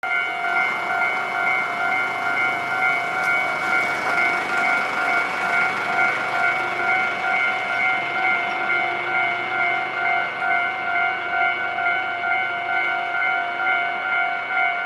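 Japanese railway level-crossing warning bell ringing its two-tone electronic "kan-kan" clang, repeating at a steady pace. Under it is a broad rushing noise, strongest in the first half.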